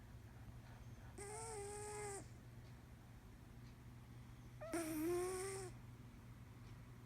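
A sleeping cat snoring: two breaths about a second long each, a few seconds apart. Each carries a steady, whistle-like tone over a breathy hiss, and the second is louder.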